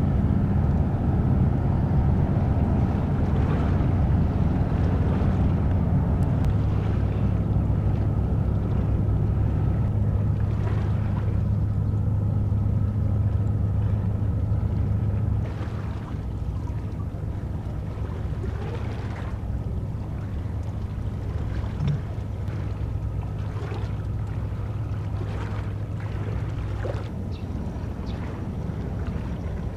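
Cruise ship's engines droning in a steady low hum as the ship moves out of harbour, mixed with wind and water noise. The hum drops somewhat in level about halfway through.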